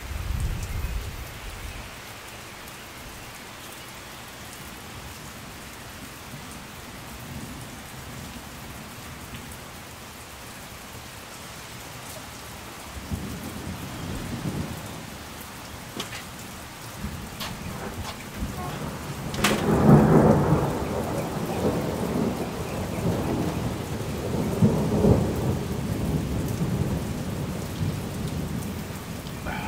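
Steady rain falling, with thunder: a short low rumble at the start, another rumble a little before halfway, then a sharp thunderclap about two-thirds of the way in that rolls on into a long, loud rumble to the end.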